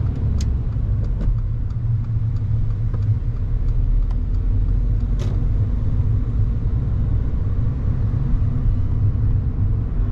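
Steady low rumble of a car heard from inside the cabin on the move, engine and road noise together. A few faint clicks sound over it, with one sharper click about five seconds in.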